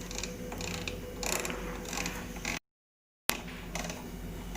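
Microwave-convection oven's control dial being turned to set the grill timer: faint runs of ratcheting clicks over a low hum, with a brief moment of dead silence a little past halfway.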